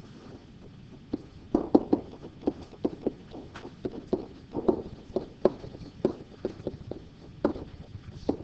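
Pen tapping and knocking against an interactive whiteboard during handwriting: a string of irregular sharp taps, several a second, starting about a second and a half in.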